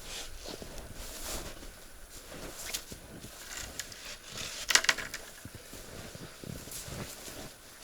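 Irregular crunching and rustling of boots treading in snow, with one louder crunch about five seconds in.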